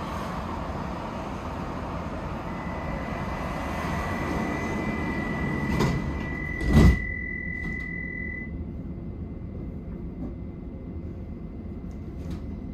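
Stockholm metro carriage standing at a station with the steady hum of the train. A high tone sounds for several seconds, and the sliding doors shut with a loud thud about seven seconds in, after which the noise from outside drops away.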